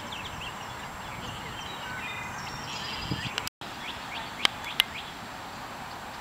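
Outdoor ambience with a steady background hiss and many small birds chirping. The sound drops out for an instant a little past halfway, and two sharp clicks follow about a second later.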